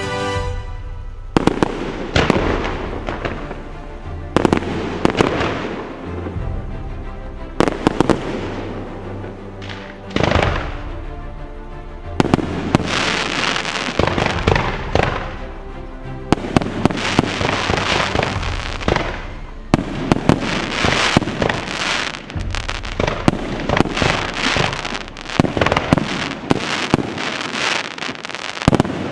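Fireworks display: repeated bangs of bursting shells and dense crackling of glitter stars, with music playing along underneath.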